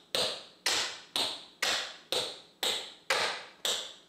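A steady, evenly spaced beat of sharp clicks, about two a second. Each click is crisp and fades quickly, and all of them are about equally loud.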